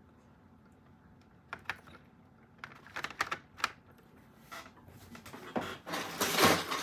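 Light plastic clicks and taps as a fischertechnik plastic windmill piece is pushed onto a gear's axle, several in a cluster, then a louder rustle of handling the parts near the end.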